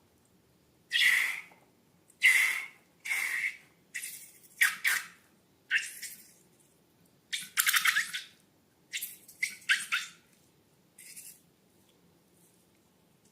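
Slime and balloons being handled: about a dozen short, sharp noises, some coming in quick pairs and clusters, stopping a couple of seconds before the end.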